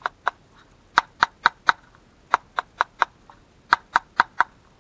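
Fingertip tapping on the small hard plastic cases of Bee*R rev limiter boxes, a fake and a real one, in quick groups of four taps, a group about every second. It is a test of how hollow each case sounds: the fake's nearly empty case gives a hollow, higher-pitched tap, while the real one, full of circuitry, sounds solid.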